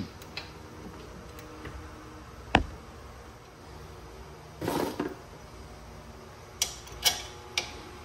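Metal clicks and a short rattle as a rear disc brake caliper is handled and fitted over the rotor onto its bracket. One sharp click comes about two and a half seconds in, a brief rattle near the middle, and three clicks about half a second apart near the end.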